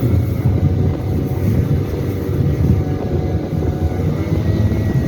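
Snowmobile engine running steadily under way, its low drone mixed with wind rush.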